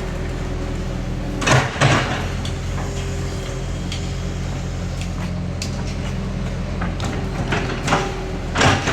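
Bulldozer's diesel engine running steadily, with sharp clanks: two close together about one and a half seconds in and two more near the end.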